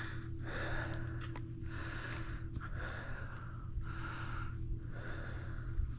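A person's breathing close to the microphone, about one soft breath a second, over a steady low hum.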